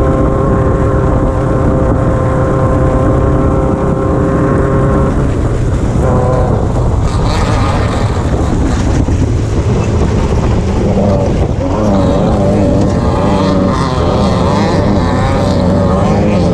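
Off-road race car engine running at high load. It holds a steady note for about five seconds, then the note breaks up and varies amid louder rough noise.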